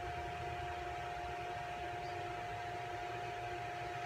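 Steady background room noise: an even hiss and low hum with one unbroken whining tone, unchanging throughout.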